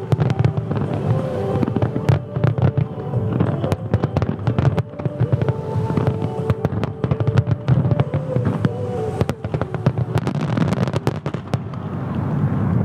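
Fireworks bursting in quick succession, many sharp bangs and crackles over a deep rumble, thickest around nine to eleven seconds in. Music plays along with them.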